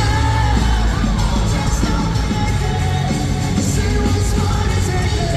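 Live band music with singing and heavy bass, loud and steady, with the crowd yelling and whooping, heard from among the audience in an arena.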